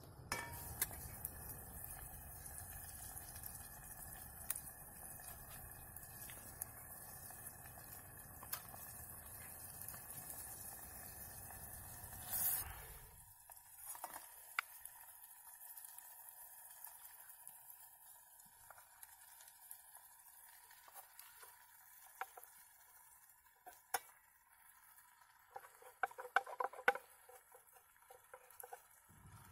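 Quiet cooking sounds from a steel camping pot on a small wood-fired stove: soft scrapes and clicks as food is stirred with a wooden spoon over a light hiss. In the second half, meat is spooned into the pot, with a quick run of clinks near the end.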